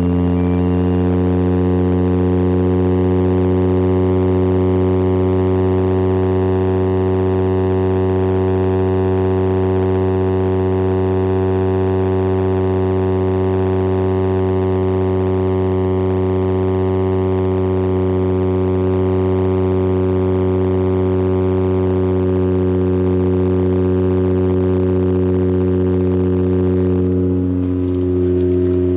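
Exhaust note of a Toyota Supra A70's straight-six engine, heard at the muffler tip, running at a steady engine speed. It is a loud, even, deep drone that barely changes, with a slight shift and a small dip near the end.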